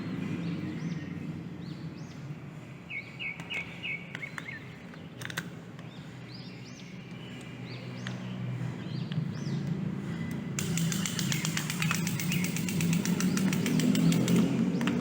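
Short, repeated bird chirps over a low steady hum. About two-thirds of the way in, a fast, high rattling buzz starts and grows louder.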